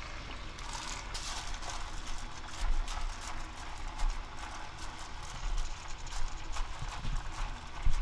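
Seasoned bracken stems being handled with a plastic-gloved hand in a frying pan and a stainless steel bowl: irregular soft knocks, clicks and rustling.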